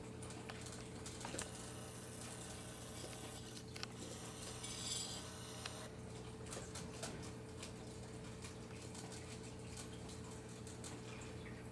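Raccoon eating dry cat food from a pet bowl: many small clicks and crunches of kibble being picked up, chewed and knocked against the bowl. A steady low hum runs underneath.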